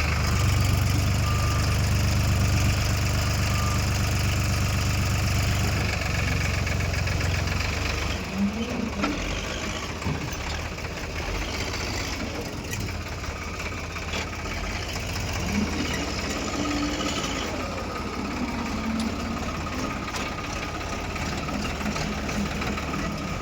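A heavy earthmoving machine's engine running steadily. It is loudest for about the first eight seconds, then drops back a little.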